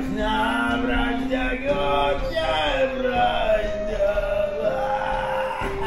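A man sings solo into a handheld microphone, a slow song of long held notes that step and slide from pitch to pitch. It is a traditional song from the singer's homeland, sung in time of victory.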